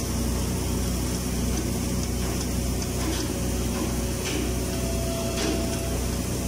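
Automatic girth welder running a submerged-arc cap pass along a horizontal tank seam: a steady hum and hiss, with a few faint ticks a few seconds in.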